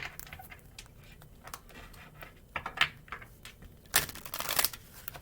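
Tarot cards being shuffled and handled: a run of light, irregular card clicks and snaps, with a louder flurry about four seconds in.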